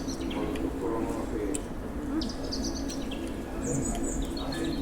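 Small birds chirping in short high bursts, a few times, over a low murmur of background voices.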